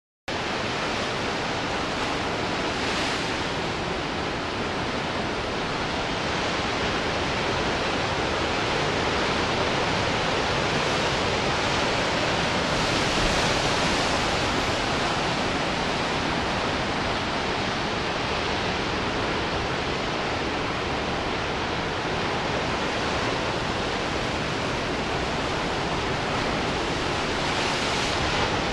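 Ocean surf breaking and washing over rocks: a steady rush of churning water and foam that swells slightly a few times as bigger waves come in. It cuts in abruptly just after the start.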